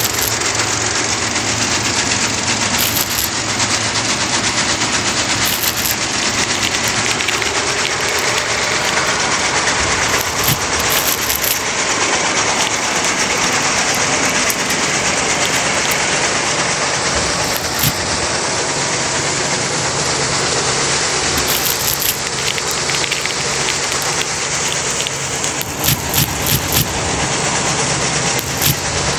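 Miniature homemade wheat thresher running steadily as wheat stalks are fed into its spinning drum: a dense, even rattle over a low motor hum, with a few sharp knocks near the end.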